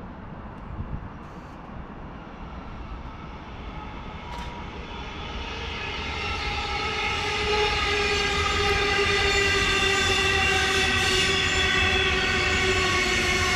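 An electric train's drive whining with a steady pitched hum over the rolling rumble. It grows louder over a few seconds and then holds, its pitch falling slowly.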